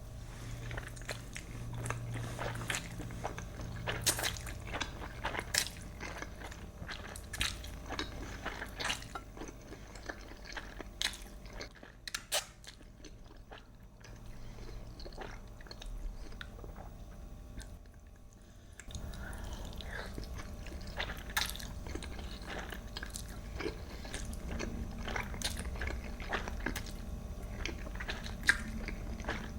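Close-miked eating: biting and chewing with crisp crunches and many sharp mouth clicks.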